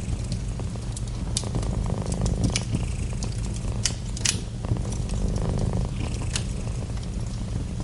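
Domestic cat purring close up, a steady low rumble that swells and eases every few seconds with its breathing. Fireplace crackles and pops sound over it, the loudest snap about halfway through.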